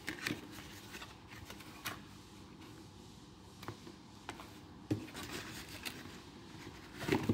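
Cardboard packaging being handled: the flaps of a paperboard box are folded open and the inner box is gripped and slid out, giving soft scrapes and rubs with a few light taps, a little louder near the end.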